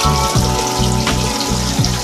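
Background music with a low, stepping bass line, over water splashing from a small waterfall into a pool.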